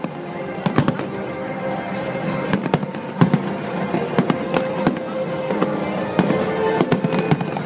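Fireworks display: shells bursting in quick irregular bangs and cracks, several a second, with music playing underneath.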